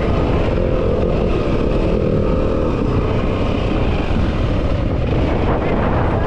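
Yamaha WR250F dirt bike's single-cylinder four-stroke engine running steadily while being ridden, its pitch wavering slightly as the revs shift.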